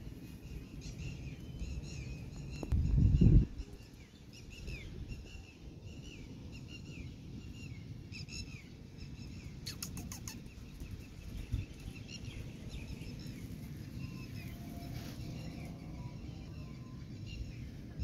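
Small birds chirping over and over in the background, short falling chirps, over a low rumble that swells briefly about three seconds in.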